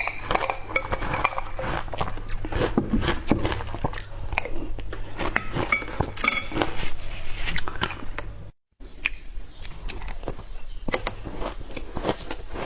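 Ice being bitten and crunched between teeth: rapid, irregular cracking crunches, with a short complete break about two-thirds through.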